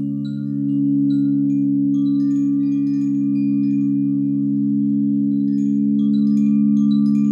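Singing bowls sustaining several steady, overlapping low tones, with chimes tinkling in short, scattered high notes above them.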